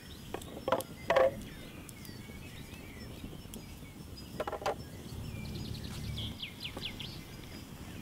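Birds chirping outdoors, with two loud wooden knocks about a second in as a wooden board is set down, and a quick clatter of knocks about halfway through.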